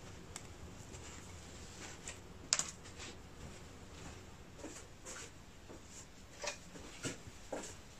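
Scattered light clicks and taps, irregular in timing and with the loudest about two and a half seconds in, over a faint steady room hum.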